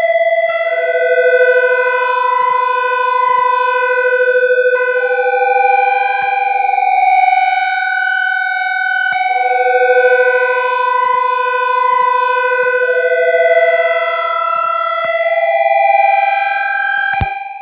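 Synthesizer playing an ambient drone of sustained, layered chord tones that shift slowly every few seconds. A sharp click comes near the end, after which it drops quieter.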